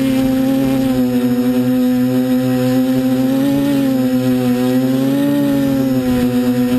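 F450 quadcopter's four brushless motors and propellers humming steadily in hover, heard from the GoPro on its frame. The pitch rises and falls briefly twice, about halfway through and again a couple of seconds later.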